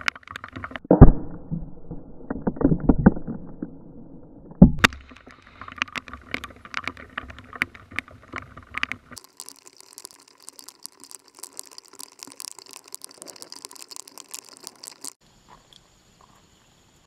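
Several loud reports from gunshots and an exploding target, the loudest about a second in, a cluster near two to three seconds and a sharp one near five seconds. A long run of faint crackling ticks follows and stops about fifteen seconds in.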